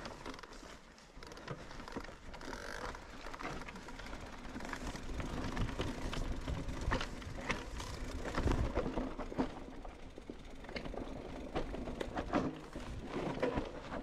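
Mountain bike clicking and rattling, with many sharp clicks over a steady rustling noise that grows louder towards the middle.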